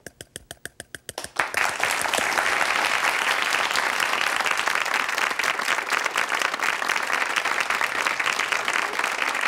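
A powdered-sugar sifter tapped in a quick, even rhythm, about six taps a second. About a second and a half in, a studio audience breaks into steady applause, the loudest sound, which runs on to the end.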